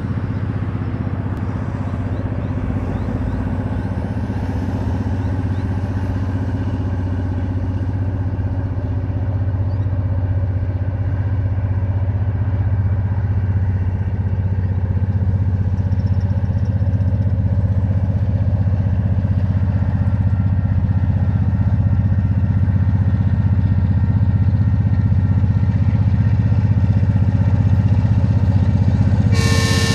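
Diesel-electric locomotive DQ 2012 hauling a log train, a steady low engine drone growing slowly louder as it approaches. Just before the end it sounds its horn, a sudden multi-note chord.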